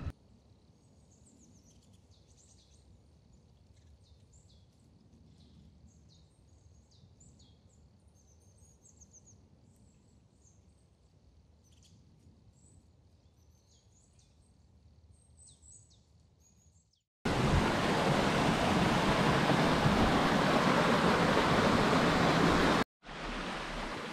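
Faint chirping of small songbirds, scattered short calls over quiet open air. About seventeen seconds in, the loud steady rush of a forest stream cuts in, stops briefly, then returns softer near the end.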